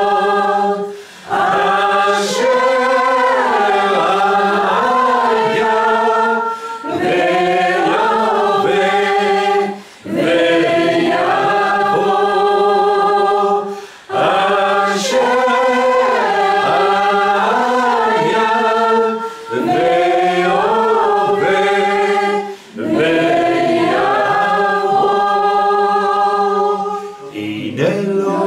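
Voices singing a slow worship melody in held phrases of about four seconds each, with a short break between phrases.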